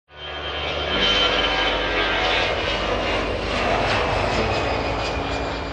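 Jet airliner passing overhead: a steady engine rush that swells up within the first second, holds, then slowly eases off toward the end.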